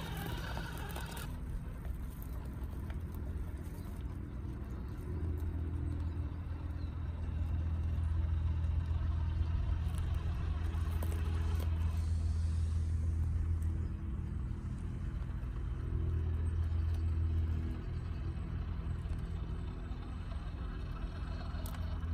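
Electric drive motor and gearbox of a Cross-RC UC6 6x6 RC model truck running with a steady low drone. It gets louder for a long stretch from about a quarter of the way in, drops, and swells again briefly near three-quarters through as the truck drives.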